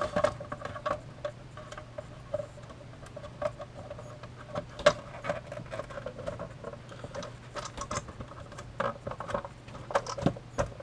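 Plastic back cover of an old Panasonic flip-display alarm clock being handled and pressed into place: irregular small clicks, taps and scrapes of plastic on plastic as it is seated, over a steady low hum.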